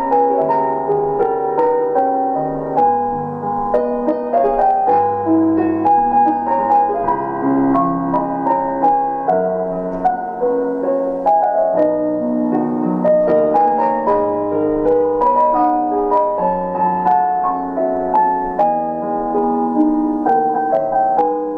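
Instrumental piano music, a steady flow of single notes over held chords.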